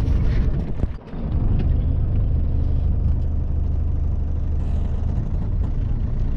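Truck's engine running with a steady low drone, heard from inside the cab; the sound dips briefly about a second in, then settles back to an even drone.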